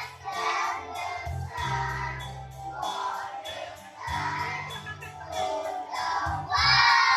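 A group of children singing a song together over music with a bass line, in phrases of about a second and a half.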